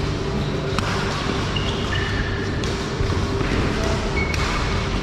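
Badminton rally on an indoor court: sharp racket strikes on the shuttlecock and a few short high squeaks, over a steady hall background noise.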